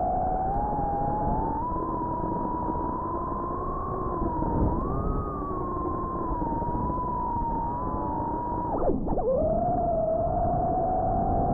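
Brushless motors of a 4-inch FPV quadcopter whining, heard through its onboard camera. The pitch rises and falls with the throttle, and about nine seconds in it dips sharply and climbs straight back.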